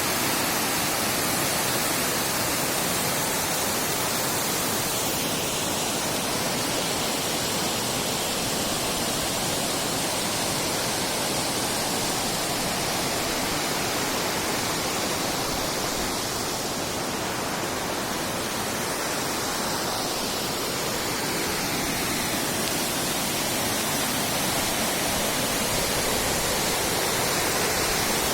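Waterfall, water falling and rushing steadily as an even, dense hiss without pause.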